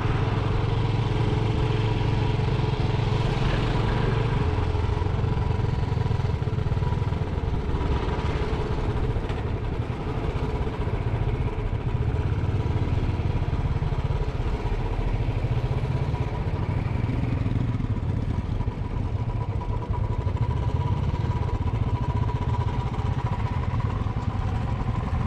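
Motorcycle engine running steadily at low road speed, heard from the rider's seat as a continuous low rumble.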